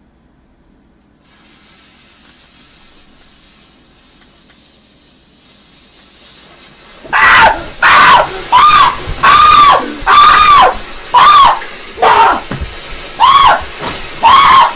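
A lit firework fountain hissing, faint at first and slowly growing. About seven seconds in, a man starts screaming in a string of about ten short, high yells, each rising and falling in pitch, over the fountain's spray.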